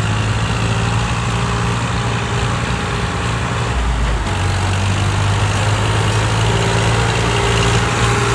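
Massey Ferguson tractor's diesel engine running steadily under load, pulling a trolley out of soft, wet paddy ground where it had got stuck. A deeper rumble swells briefly about four seconds in.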